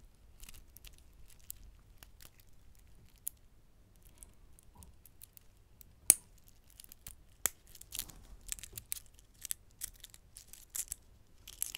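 Stainless-steel Bulova chronograph watch and its link bracelet being tapped and handled up close: scattered light clicks and ticks of metal. A sharp click comes about halfway through, and the clicks come quicker after it.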